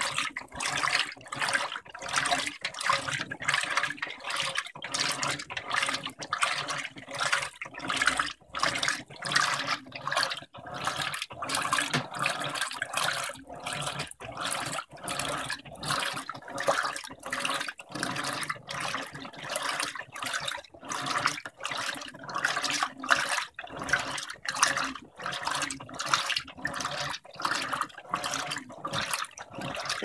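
Electrolux LTM15 15 kg top-load washing machine agitating a load of clothes at its maximum water level: water sloshing and churning in an even rhythm of surges as the agitator works the load.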